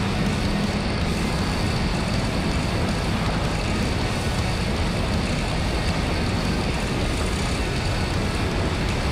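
Motorcycle running at speed on a race track, its engine note steady under a loud, even rush of wind noise.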